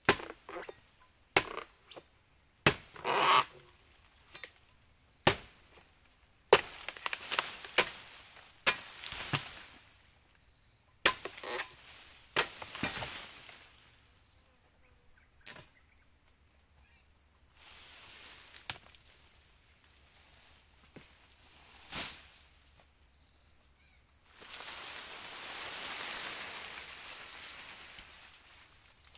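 Insects chirring steadily at a high pitch, over more than a dozen sharp, irregular knocks and clacks that come mostly in the first half. Near the end a soft rushing noise swells for a few seconds.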